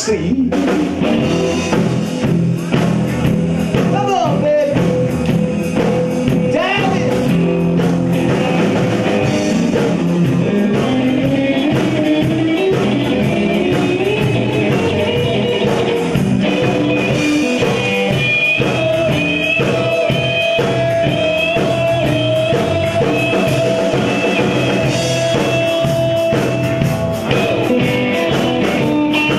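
A three-piece band playing rock and roll live: electric guitar, bass guitar and drums in an instrumental break, with the lead line bending up in pitch now and then.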